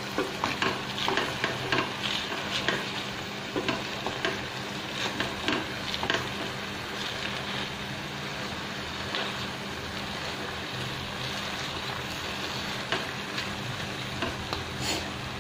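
Wooden spatula stirring and turning Malabar spinach leaves and chicken in a stainless steel pot, with scraping and frequent knocks against the pot over a steady sizzle. The knocks come thickly in the first half and thin out later.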